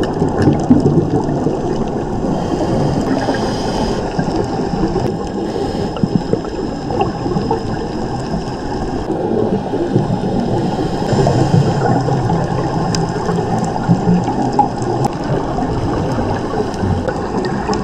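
Muffled underwater noise heard through a camera's dive housing, with a scuba diver's breathing: a few short hisses of inhalation through the regulator and gurgling rumbles of exhaled bubbles.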